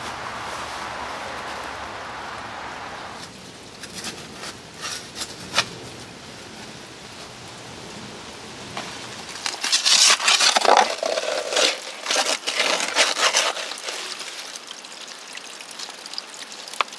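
Dry fallen leaves crunching and rustling underfoot and being brushed aside, with scattered crackles, and a louder run of crunching and scraping about ten seconds in.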